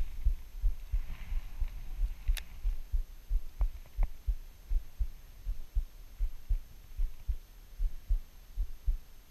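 Low, irregular thumping rumble on the camera's microphone, about one or two thumps a second, with a sharp click about two and a half seconds in and two fainter ticks a little after.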